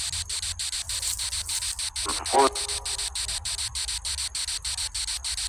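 Crickets chirping in a steady rhythm, about five pulses a second, with a brief voice-like sound about two seconds in.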